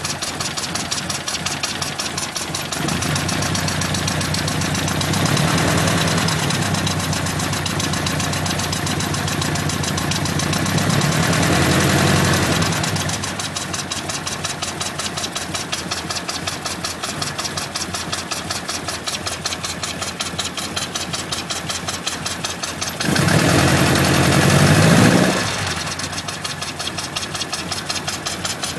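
Lotus Twin Cam four-cylinder engine idling with a strange sucking noise, revved up from about three seconds in for some ten seconds and blipped again briefly near the end. The owner traced the sucking noise to a broken part inside one of the carburettors.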